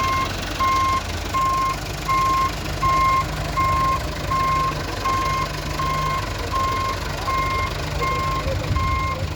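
Backhoe loader's reversing alarm beeping steadily, about one and a half beeps a second, over the low running of its diesel engine: the machine is backing up.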